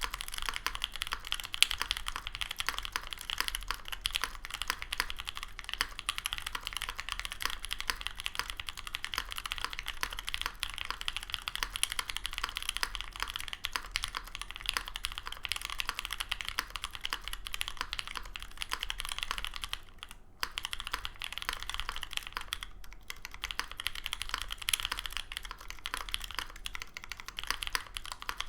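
Steady, fast typing on a Monokei Kei R2 60% mechanical keyboard with Pewter light-tactile switches on an aluminum full plate and GMK Olivia++ keycaps: a dense stream of clacky keystrokes, with two short breaks about two-thirds of the way through. The builder hears scratchiness and a lot of leaf ping in these switches, which he puts down to missing factory lube on the stem legs and leaf.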